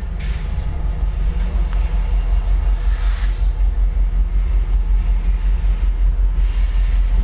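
Low steady rumble of an approaching diesel freight locomotive, a CSX CW44AC, with faint short high chirps repeating above it.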